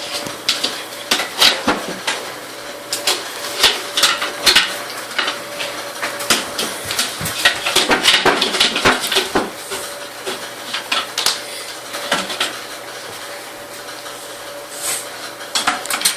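Dishes and cutlery clattering: irregular clinks and knocks throughout, over a faint steady hum.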